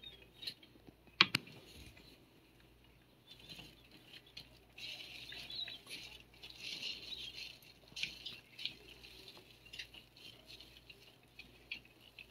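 A dry toothbrush's bristles scratching over a cat's fur in short repeated strokes, a soft scratchy rustle. A sharp click about a second in.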